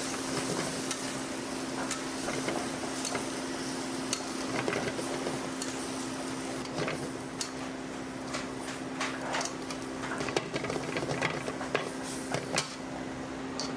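Street-food cooking sounds: metal utensils and cookware clinking and tapping, a little busier in the second half, over a steady low hum.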